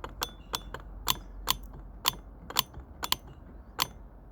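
Land Rover Freelander TD4 air-con compressor's electromagnetic clutch clicking in and out as its coil is switched on and off, about twice a second. The sharp clicks show the clutch is working.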